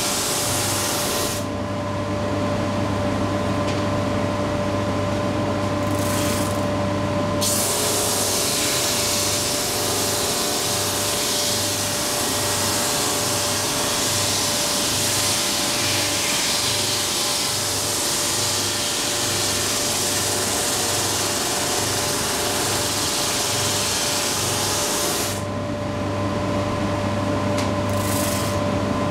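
JET 22-44 OSC oscillating drum sander running with a steady motor hum, with a ziricote board feeding through under the sanding drum. A loud sanding hiss starts about seven seconds in and stops about four seconds before the end, leaving just the motor running.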